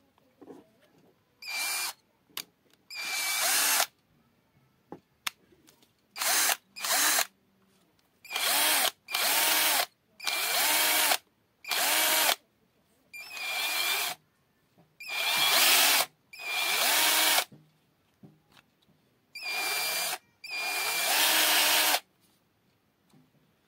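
Cordless drill-driver's motor running free with an empty chuck in about a dozen short trigger bursts, each spinning up and stopping after half a second to a second and a half; in several the pitch rises and falls as the trigger is squeezed and eased.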